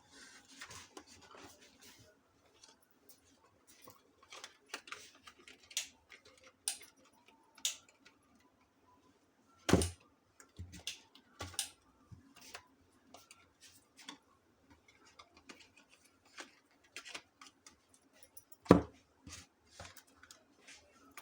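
Bars of soap being unwrapped by hand: scattered crinkles and light clicks of the packaging, with two louder knocks, about ten and nineteen seconds in.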